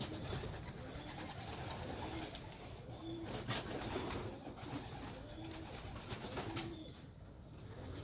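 Domestic racing pigeons cooing: short, low coos repeated several times, with scattered brief clicks.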